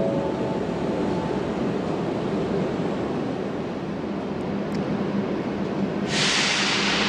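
Renfe Cercanías electric commuter train running in the station, with a steady rumble and low hum. At the start a short motor whine steps up in pitch. About six seconds in a sudden loud hiss starts and slowly dies away.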